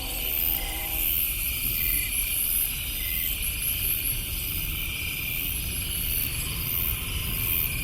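A distant train horn's chord dies away about a second in. What remains is a steady low rumble, with night insects chirping in high repeating pulses above it.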